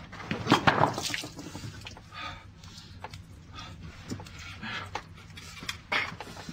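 A quick clatter of knocks and scrapes about half a second in, then scattered soft thumps and rustles of people moving about and shifting a wooden crutch.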